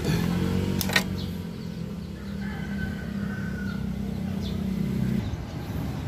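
A steady engine hum that cuts off suddenly about five seconds in, with a single sharp metallic click about a second in. A distant rooster crows faintly in the middle.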